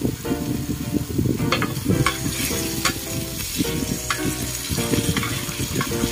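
Chicken pieces sizzling in oil in a pan, stirred and turned with a slotted spatula that scrapes against the pan several times.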